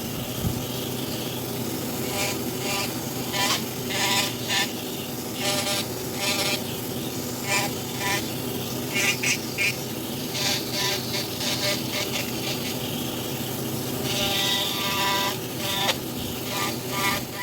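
Small electric power-carving tool running steadily, its hum broken by frequent short bursts as the bit grinds into the wood.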